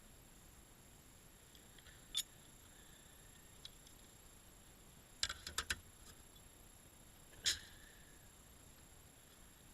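A few sharp clicks and knocks over a faint steady hiss: one, then a quick run of four, then one more, a couple of them leaving a short faint ring.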